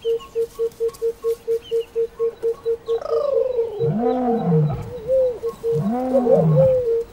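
Lion calls: a falling cry about three seconds in, then two low calls, each rising and then falling, a couple of seconds apart. Behind them a bird repeats a short note about four times a second.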